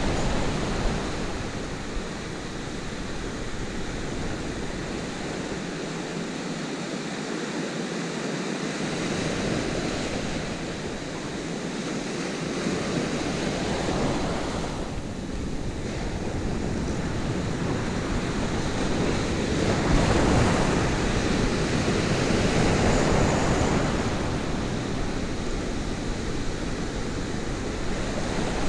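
Surf breaking and washing over a rocky shoreline, swelling and easing with each wave, loudest about twenty seconds in, with wind buffeting the microphone.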